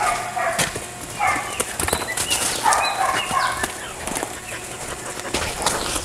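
Sheep and a herding border collie moving about a pen: quick, scattered hoof and paw taps on the ground, with several short animal calls.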